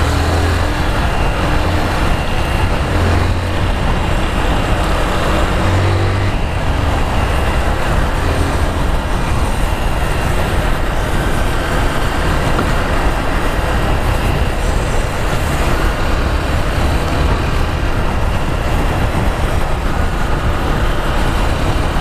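A 2014 Honda Fan 150 motorcycle's single-cylinder engine running on the move, under a steady rush of wind on the handlebar-level action-camera microphone. The engine note is clearest in the first six seconds; after that the wind noise covers most of it.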